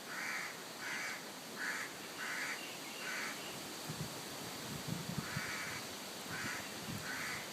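A bird giving short, harsh, caw-like calls, about two a second: five in a row, a pause, then three more. A few soft low thumps fall in the pause.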